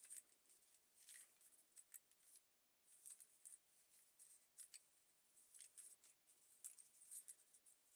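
Faint, irregular rustling and light taps of handmade journal paper pages being picked up, shuffled and set down while they are sorted into order.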